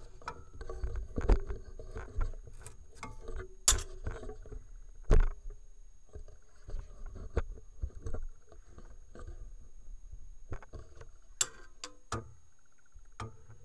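Irregular knocks and clicks from handling: the steel jaw of a pair of old limb clippers set down and shifted against a belt grinder's steel work rest. The loudest knocks come about a second, three and a half seconds and five seconds in.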